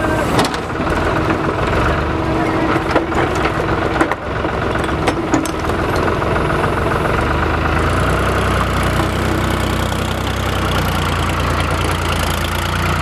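Heavy machinery's diesel engine running steadily, with a few sharp knocks in the first half; about eight seconds in its low rumble grows stronger.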